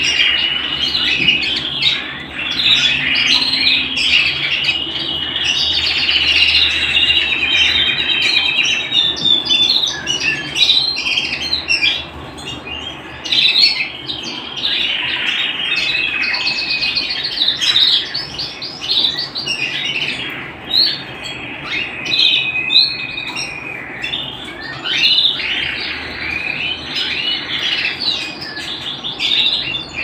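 Domestic canary singing a long, continuous song of rolling trills and rapid chirps, with held trills near the start and again around the middle.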